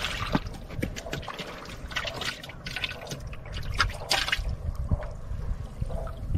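Small splashes, trickles and drips of water around a wooden canoe, a busy run of them that thins out after about four seconds.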